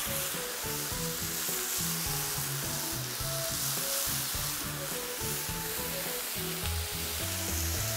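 Chicken frying on a very hot griddle plate over a wood fire, a steady sizzle, with soft background music underneath.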